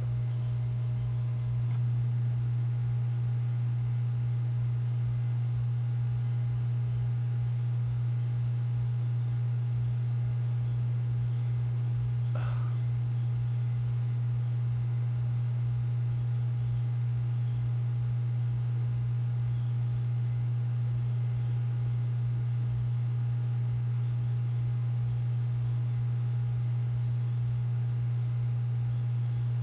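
A steady, low-pitched electronic-sounding hum: one unbroken tone held without a break or change, with a brief faint sound about twelve seconds in.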